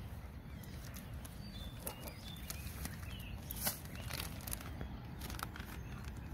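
Scissors snipping open a plastic packet of shredded coconut and the packet crinkling in the hands, heard as scattered sharp clicks and rustles, the loudest about three and a half seconds in, over a steady low background rumble.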